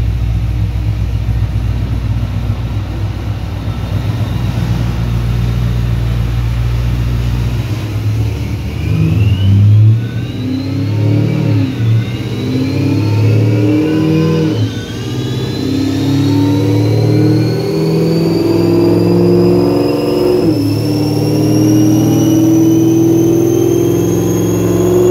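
Supercharged LS3 V8 of a Chevy SS with a Whipple 2.9 blower, on a chassis dyno: it runs steadily at low revs for about eight seconds, then pulls hard, its pitch climbing and dropping back several times. A supercharger whine rises steadily over it toward the end.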